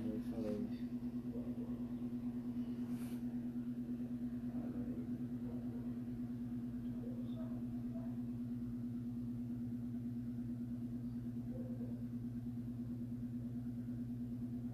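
A steady low hum with a few pitched lines in it and a fine even flutter underneath.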